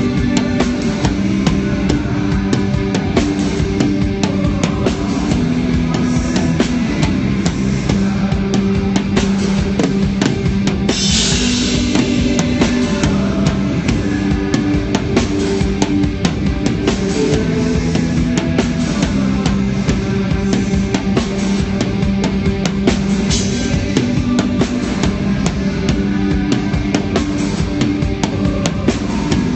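Live rock band playing at a sound check, with drum kit, bass and guitar, heard through a low-quality phone livestream capture. Cymbal crashes about a third of the way in and again past two-thirds.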